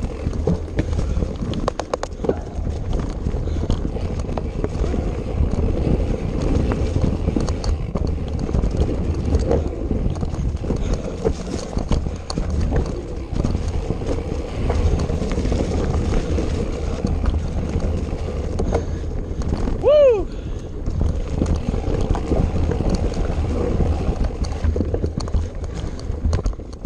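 Off-road vehicle engine running under load over rough, rocky ground: a steady low rumble with wind buffeting the microphone and constant knocks and rattles from the jolting ride. About two-thirds of the way through, a short sound that falls in pitch stands out as the loudest moment.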